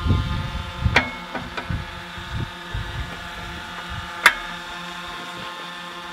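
Tractor engine idling steadily, with two sharp metallic clicks as hydraulic quick-connect couplers are pushed together: a smaller one about a second in and a louder one just past four seconds.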